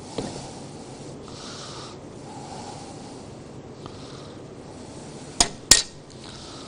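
Dishes and utensils clinking: a light knock just after the start, then two sharp clinks close together near the end, over a low steady background.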